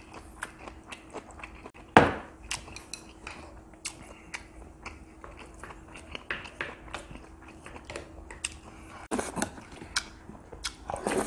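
Close-up eating sounds: chewing and mouth smacks, with a spoon and chopsticks clicking against ceramic bowls. One louder knock comes about two seconds in.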